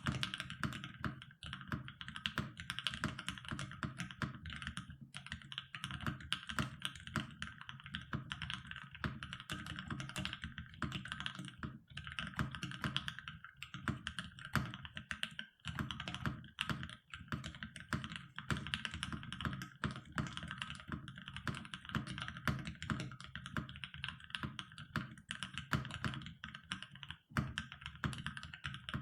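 Continuous typing on a CannonKeys Rekt1800 custom mechanical keyboard with filmed and lubed JWK Alpaca linear switches, an FR4 plate and ePBT keycaps: a dense stream of keystrokes with a few brief pauses, stopping at the very end.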